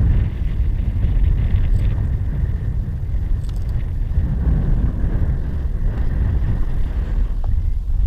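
Wind buffeting a GoPro Hero 4 Silver action camera's microphone: a steady low rumble, with a faint thin high tone under it.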